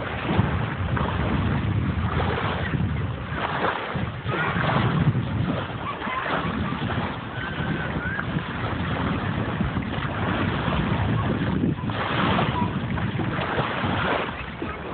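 Wind blowing across the microphone over small waves washing on the shore: a steady rushing noise that swells and eases in gusts.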